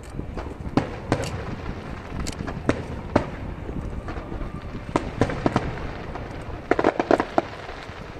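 Aerial fireworks bursting: sharp bangs and cracks at irregular intervals, with a quick cluster of cracks about seven seconds in.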